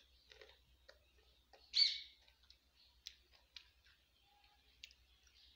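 A small bird chirps once, short and high, about two seconds in, followed by a few faint scattered clicks.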